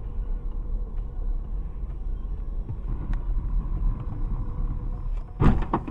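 Steady low rumble of a car's engine and tyres heard from a dashcam inside the cabin, with a couple of loud sharp knocks near the end.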